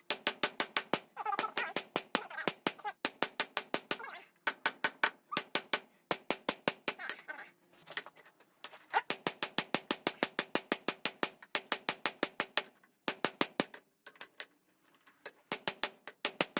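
Hand hammer striking hot knife steel, forged from an old Nicholson file, on an anvil in quick, even runs of about five ringing blows a second, with short pauses between runs. The blows drive the metal back to close the fish lip at the blade's tip.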